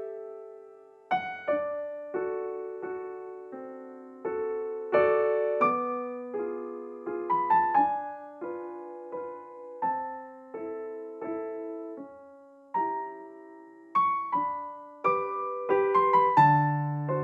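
Background piano music: a slow melody of struck notes and chords, each note ringing and fading before the next.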